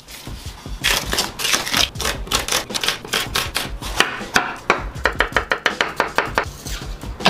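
Kitchen knife cutting tomatoes and chopping garlic on a bamboo cutting board: a run of sharp knocks of the blade against the wood, quickening into rapid even strikes in the later seconds.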